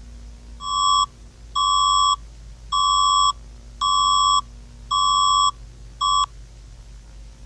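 Synthesized alert beep tone at about 1 kHz, sounding six times, each beep about half a second long and roughly one a second, the last one cut short. The beeps close the emergency alert message.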